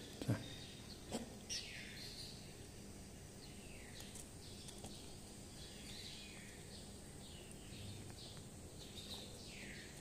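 Faint, thin chirps from a small songbird, each sliding down in pitch, coming every second or so, with a couple of soft clicks in the first second and a half.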